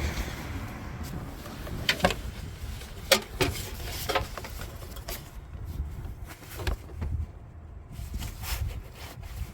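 Scattered clicks and knocks of the plastic airbox and its small breather pipe being handled and fitted, over a low steady rumble.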